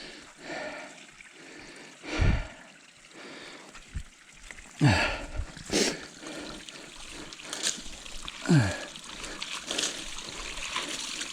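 Muddy puddle water trickling away down a freshly dug drainage channel, broken by several splashes and scrapes in the mud.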